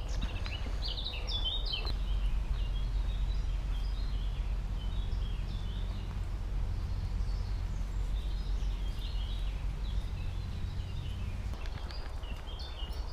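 Woodland songbirds chirping and singing on and off throughout, over a steady low rumble that eases a little near the end.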